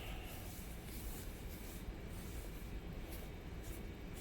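Faint scratchy rubbing of a utensil stirring a dry flour, cornstarch and chicken-fry mix in a mixing bowl.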